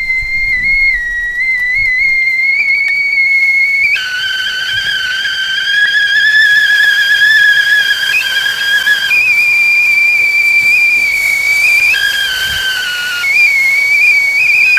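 Whistling teapot letting off steam at the boil: a loud, shrill whistle that flips several times between a single high note and a lower two-note sound, its pitch wavering slightly, over a hiss of steam.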